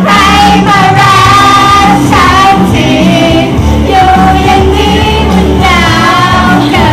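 Upbeat pop song with women singing over a steady bass beat.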